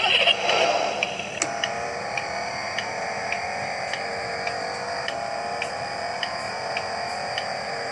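Battery-powered toy driving dashboard playing an electronic tune, with a steady ticking about twice a second. A brief louder burst of noise comes right at the start.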